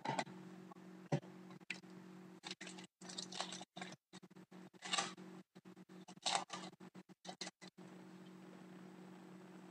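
Foil trading-card pack wrapper crinkling and cards rustling as they are handled and flipped through, in short scattered bursts over a few seconds, over a faint steady hum.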